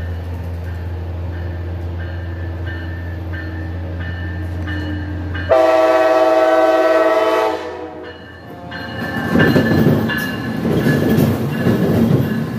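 A bell dings about twice a second as an Amtrak Siemens ALC-42 Charger locomotive approaches. About five seconds in, the locomotive sounds one loud horn blast of several notes together, lasting about two seconds. Then the locomotive and passenger cars rush past with rolling wheel and engine noise.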